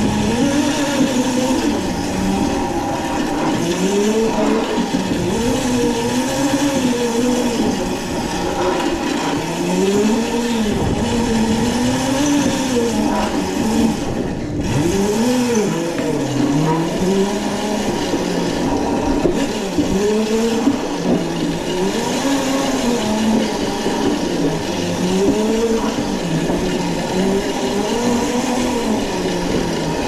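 Razor Crazy Cart XL electric drift kart being driven: its electric drive motor whines, the pitch rising and falling every second or two as the throttle is worked, over a steady hiss.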